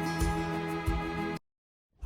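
Background music with sustained tones and a steady beat, cutting off abruptly about one and a half seconds in, then silence.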